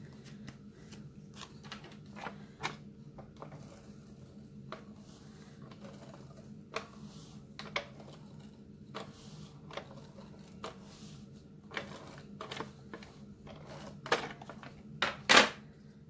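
Desktop handling of paper craft pieces and a clear plastic storage case: scattered light clicks, taps and paper rustles, with a louder clatter near the end, over a low steady hum.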